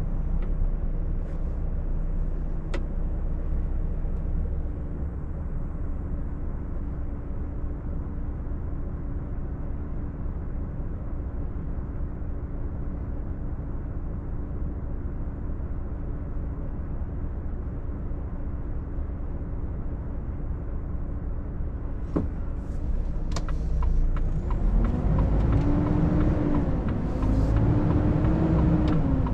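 Volvo FH460 truck's 13-litre straight-six diesel heard from inside the cab, running low and steady while the truck rolls to a stop and stands. Near the end it grows louder as the truck pulls away, the pitch rising and dropping several times as it works up through the gears, with a few sharp clicks just before.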